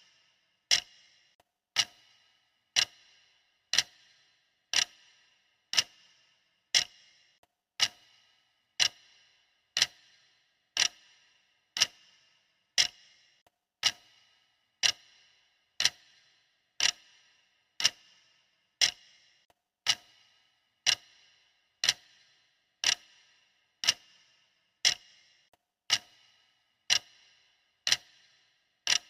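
Clock-style ticking sound, sharp clicks at an even pace of about one tick a second, each with a brief metallic ring.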